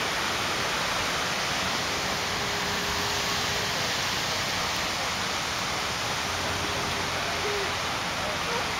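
Steady rush of falling and splashing fountain water, the large spray of Buckingham Fountain, with two faint, held low tones over it about two and six seconds in.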